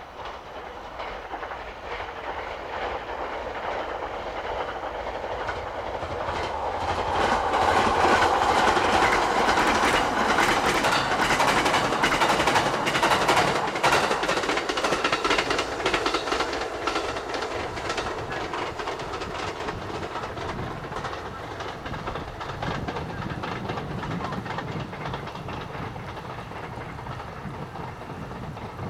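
JR West 287 series electric limited express passing at speed, its wheels clattering over rail joints. The sound builds as it approaches, is loudest for several seconds as it goes by, then slowly fades as it runs away.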